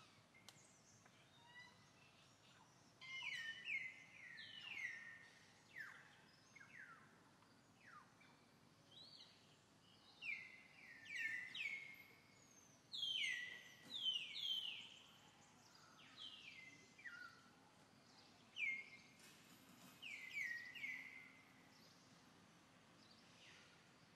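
Birds calling in forest: short whistled notes, each sliding down in pitch, given in quick runs of two to four, repeated over and over from a few seconds in until near the end.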